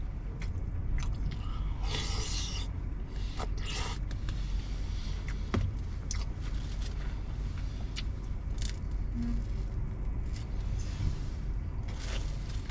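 A spoon scraping and clinking against a plastic food tub, with chewing and short rustles, over a steady low hum in a truck cab.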